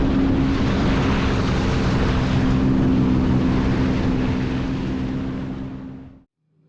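Jet ski engine running at speed with a steady hum under rushing wind and water noise. It fades a little near the end, then cuts off abruptly.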